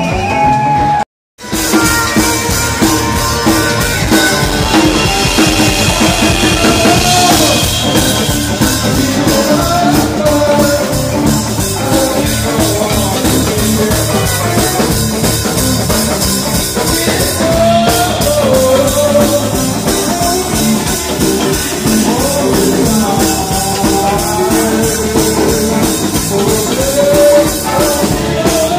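Live rock band jamming: electric guitar over a drum kit with cymbals, played loud. The sound cuts out completely for a moment about a second in.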